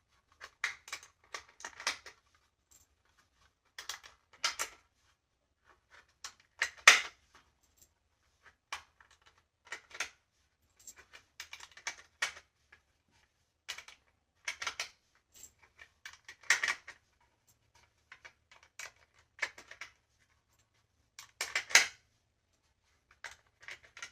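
Irregular sharp metallic clicks and clacks of cartridges and gun magazines being handled, with rounds pressed into or stripped out of the magazines against their springs. The loudest clacks come about seven seconds in and near the end.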